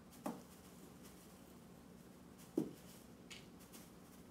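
A plastic measuring spoon handled against a plastic salt container while scooping salt: two short soft knocks about two seconds apart, the first just after the start.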